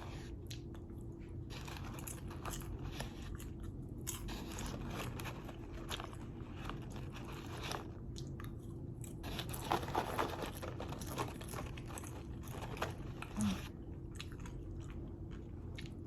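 A person chewing crunchy microwave popcorn close to the microphone: irregular crunches all through, with a few louder bites about ten seconds in.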